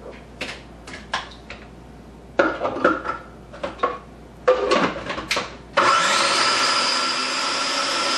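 Knocks and scrapes as the small electric food processor is loaded with cottage cheese and closed, then about six seconds in its motor starts and runs steadily with a whine, pureeing the small-curd cottage cheese until smooth.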